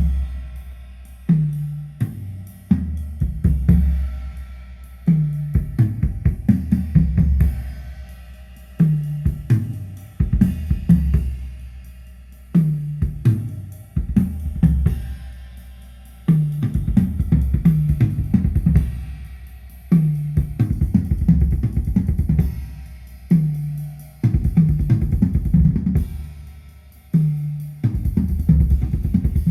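Drum-heavy music with a deep, pulsing bass line, snare, hi-hat and cymbals, played back through a repaired Onkyo Integra A-8250 integrated stereo amplifier as a sound test.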